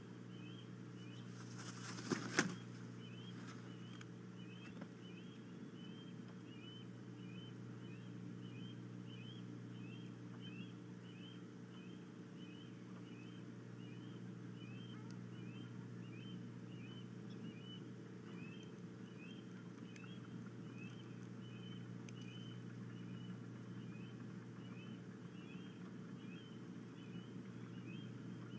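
An osprey's wings flapping as it lands on its stick nest: a short burst of wingbeats about two seconds in. Under it, a steady low hum and a faint high chirp repeating evenly, about one and a half times a second.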